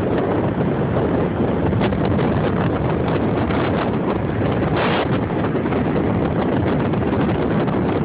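Strong hurricane wind buffeting a phone's microphone: a loud, steady rush with a few brief crackles.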